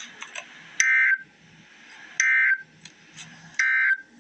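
Emergency Alert System end-of-message data code: three short, identical bursts of warbling digital tone, about a second and a half apart, marking the end of the alert. A faint low hum runs underneath.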